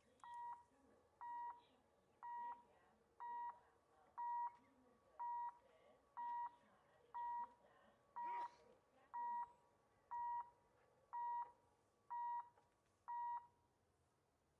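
Level crossing warning beeper sounding short single-pitched beeps about once a second while the barrier arm lowers, stopping as the barrier reaches the bottom.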